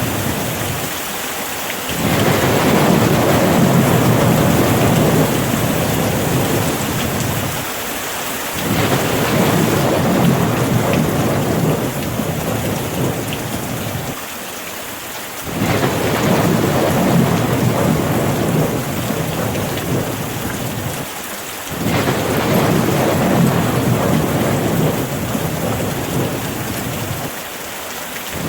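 Steady rain with rolling thunder. Low rumbles swell and fade about every six seconds over the constant hiss of the rain.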